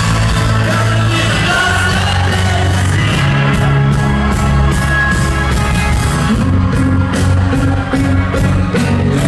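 Alternative rock band playing live, with electric guitars, bass, drums and a lead singer, heard from within the crowd at a concert hall.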